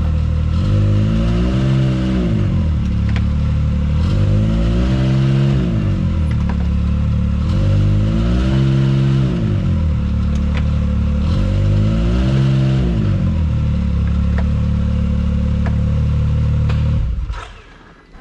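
Can-Am Maverick X3's turbocharged three-cylinder engine idling, blipped up and back down four times, then shut off near the end. It is being revved freshly fitted with an STM primary clutch to see where the clutch engages.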